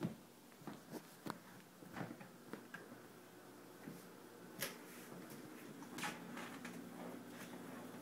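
Irregular sharp ticks and clicks from a Panasonic microwave oven's casing, the odd noises its owner says it makes, with a few louder pops. A low steady hum comes in about halfway through.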